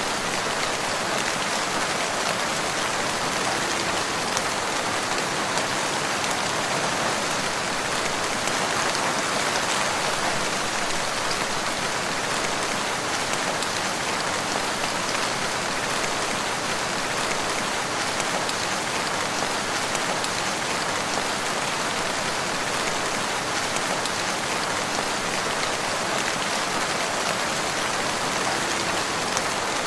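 Steady rain falling, an even hiss of drops on surfaces that holds level without pause.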